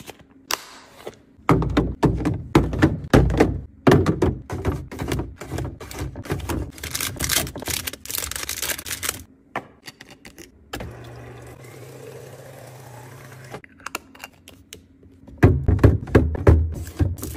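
Quick clicks, taps and knocks of plastic containers, latching lids and snack packs being handled and set down into plastic fridge organizer bins. For a few seconds in the middle there is a steady low hum with only faint handling.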